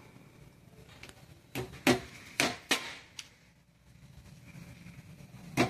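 Sharp knocks and taps from hand work on a piassava broom at a workbench: a cluster of about five between one and a half and three seconds in, then one more near the end.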